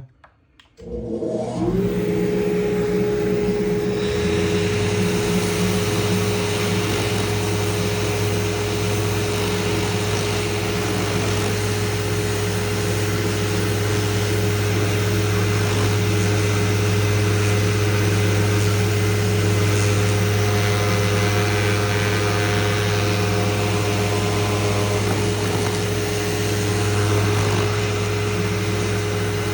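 A dust extractor spins up about a second in and runs steadily. A couple of seconds later a Mirka Deros electric random-orbit sander joins it, sanding green compound off a leather strop with 180-grit Abranet mesh abrasive.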